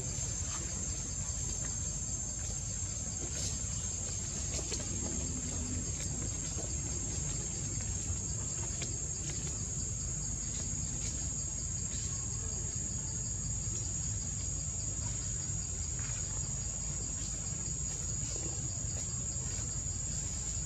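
Steady high-pitched insect drone, as from crickets or cicadas in the trees, over a constant low rumble.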